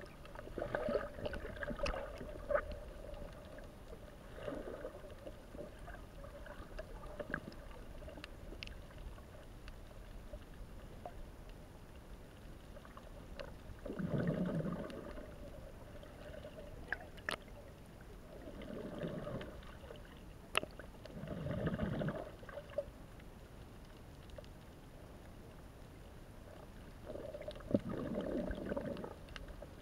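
Muffled underwater sound picked up through an action camera's waterproof housing: water moving, with swells of gurgling and bubbling every few seconds and a few sharp clicks.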